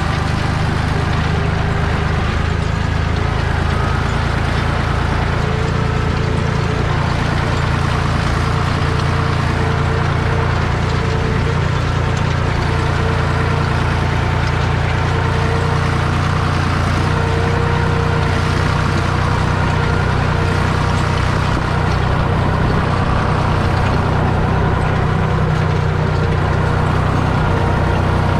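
Deutz D 5206 tractor's air-cooled three-cylinder diesel running steadily, heard from the driver's cab. A thin steady whine joins the engine about five seconds in.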